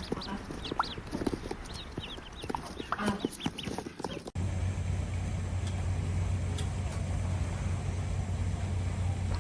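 Chickens clucking, many short quick calls overlapping. About four seconds in it cuts off abruptly to a steady low hum with background noise.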